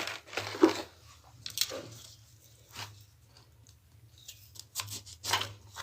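Salt-stuffed lemons being pressed and packed down by hand: a few scattered crunches and crackles of coarse salt and lemon peel as they are squeezed to release their juice.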